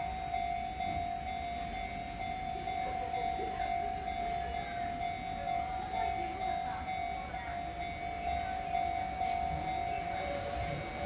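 Japanese railway level-crossing warning bell ringing steadily from the crossing's loudspeaker. A second, lower tone joins near the end as a train approaches.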